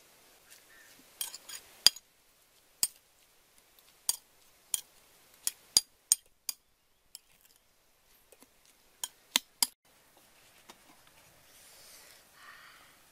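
Metal spoon clinking against a ceramic bowl while tossing sliced green onions and shallots, about a dozen sharp clinks in irregular groups with a short pause midway.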